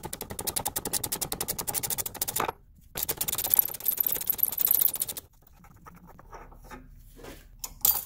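Hand ratchet clicking in rapid, even strokes as it runs a thread chaser down a rusty M10 x 1.25 bolt, stopping about two and a half seconds in. A denser, hissier run of clicking follows for about two seconds, then a few scattered clicks.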